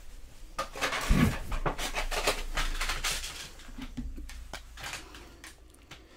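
Rustling, knocks and a low thump about a second in as a person shifts and settles close to a desk microphone, with breathy noise; it dies down after about five seconds.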